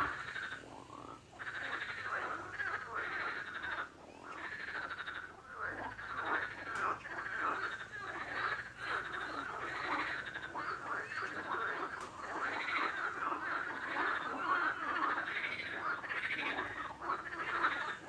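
A chorus of frogs croaking, many short calls overlapping almost without a break.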